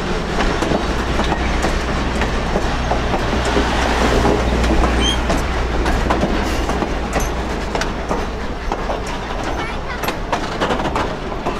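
Passenger coaches of an excursion train rolling past close by: a steady rumble of wheels on rail with rapid, uneven clacking of the wheels over the track.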